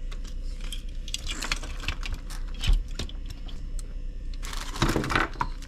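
Handling noise from an RC rock crawler being turned over by hand: light scattered clicks and rattles of its plastic and metal parts, a soft low thump about halfway through and a busier run of knocks near the end.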